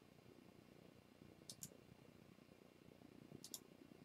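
Two faint computer-mouse double-clicks about two seconds apart, over near silence.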